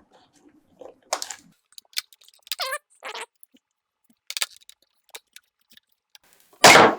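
Plastic parts of a GoPro Karma drone being forced apart by hand: scattered clicks, scrapes and a brief squeak, then a loud sudden sound near the end as the part comes free.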